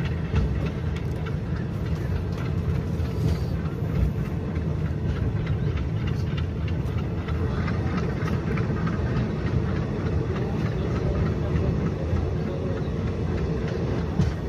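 Passenger train running along the track, heard from its open door or window: a steady low rumble of wheels and coach with rushing air, and faint scattered clicks.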